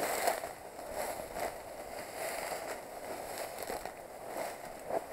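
Rustling footsteps through dry reeds and grass, with scattered crackles of stalks.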